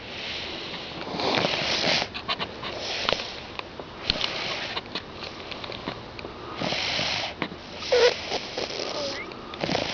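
Snoring through a congested nose from a lingering cold: rasping breaths every second or two, with short clicks and a brief whistling note about eight seconds in.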